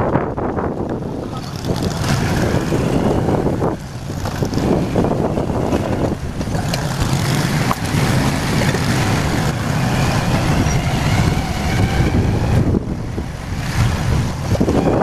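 Wind rushing over the microphone of a moving motorcycle, with its engine and road noise underneath. Steady, easing briefly about four seconds in and again near the end.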